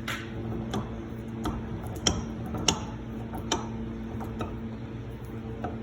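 Harbor Freight 6-inch bench vise being cranked open to its full opening, giving a series of sharp clicks about every three-quarters of a second as the handle is turned.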